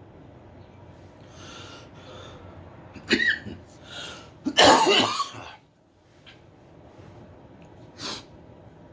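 A man coughing from harsh bong smoke: breathy exhales, a sharp cough about three seconds in, then the loudest and longest fit of coughing about five seconds in, and one more short cough near the end.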